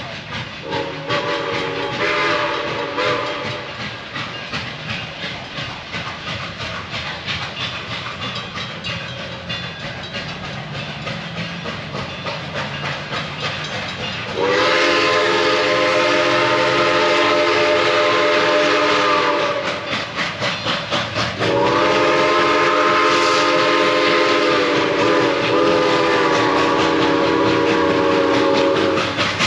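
Steam whistle of Iowa Interstate's 2-10-2 steam locomotive #6988, a Chinese-built QJ: a short chord-like blast about a second in, then two long blasts in the second half. Between the blasts its exhaust chuffs, the beat quickening as the engine accelerates from a standstill.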